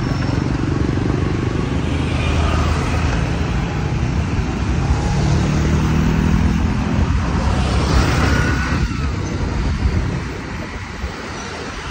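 Road traffic: motorcycles and scooters running close by, heard as a steady low engine rumble with road noise. It eases off a little near the end.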